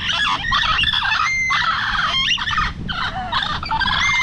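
Parrots chattering and squawking loudly: a dense run of harsh calls with a few clear whistled notes mixed in.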